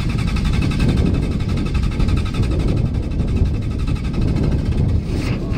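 An old diesel truck engine cranking on its starter without catching, in a fast, even rhythm. The engine will not start because air has got into the fuel system after the truck ran low on fuel.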